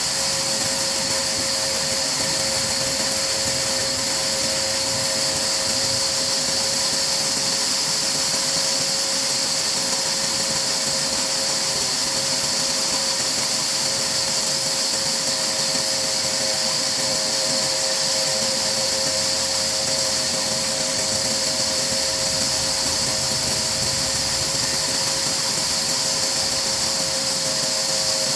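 A machine running steadily: an even hiss with a constant whine that does not change in pitch or level.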